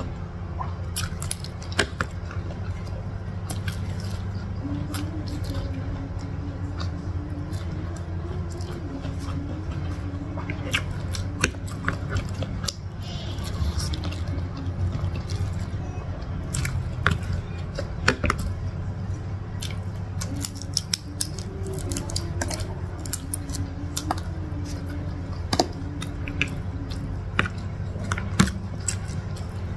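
Close-miked eating sounds: chewing and smacking of fried instant noodles and fried egg, with frequent sharp clicks of the fork and spoon, over a steady low hum.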